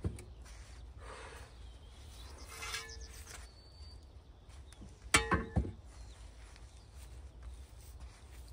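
Tools and a metal bucket being handled and loaded into a car's boot: scattered knocks and a short rattle, then a loud clank with a brief ring about five seconds in.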